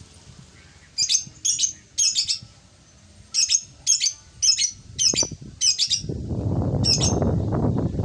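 A lakbet bird giving a run of about ten short, harsh, chattering call notes in irregular groups, the kind of call used to lure the birds. A low rustling noise comes in about six seconds in.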